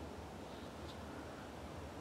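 Faint, steady outdoor background noise: a low rumble and soft hiss, with one brief faint high chirp about a second in.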